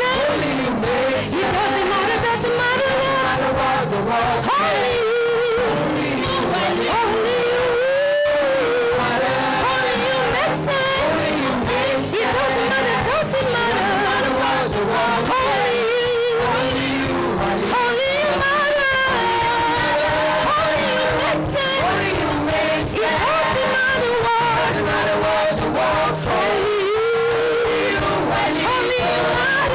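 Live gospel worship music from a choir ministration: sung melody with wavering, held notes over instrumental accompaniment.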